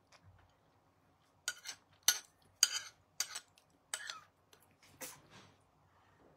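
Metal spoon scraping and clinking against a ceramic plate as flan is cut and scooped, about seven short sharp strokes in a row.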